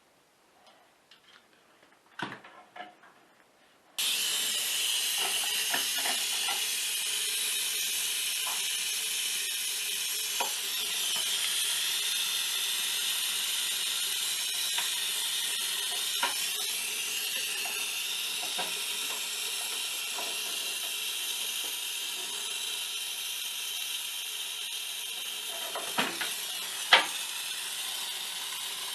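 Pressurised gas hissing steadily from a refrigerant line or valve, starting suddenly about four seconds in and easing slightly over time. A few light ticks, and two sharp clicks near the end, from tools on the fittings.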